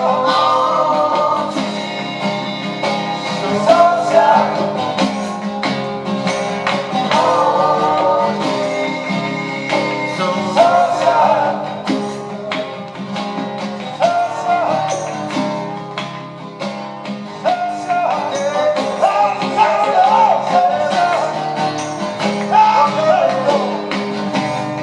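Acoustic rock music: strummed guitars under a melodic lead line, playing continuously without sung words.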